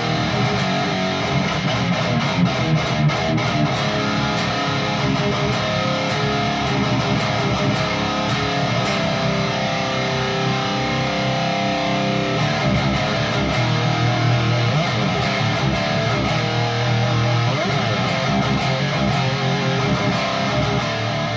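High-gain distorted electric guitar playing metal riffs through a Peavey 6505 II tube amp, driven by an overdrive boost pedal.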